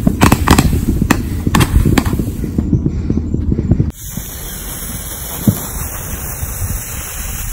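Multi-shot aerial firework launching stars, a quick irregular series of sharp pops over a low rumble. About four seconds in it cuts off abruptly to the steady hiss of a fountain firework spraying sparks, with one more pop a little later.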